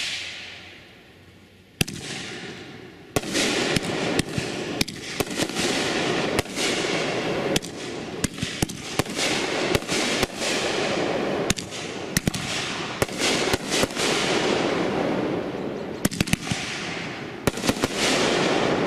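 A 500-gram consumer fireworks cake firing in the night sky: a bang at the start and another about two seconds in, then from about three seconds a continuous dense hiss of bursting effects cut by many sharp bangs.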